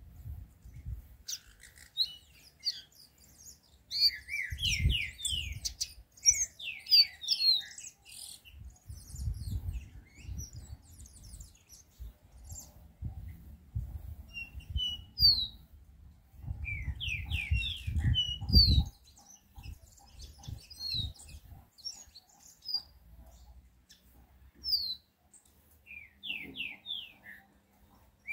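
Caged songbird, the kind called a 'chiviro verde', singing in phrases of quick, downward-sliding high notes separated by pauses. A low rumble comes and goes under the song.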